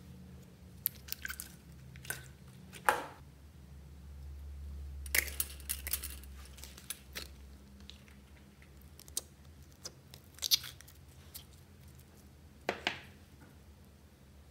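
Slime being handled by hand: sticky squelches and crackling clicks as clear glitter slime is worked and a pink shimmer slime is pulled from its tub and stretched. The clicks come scattered, with a denser run about five to seven seconds in.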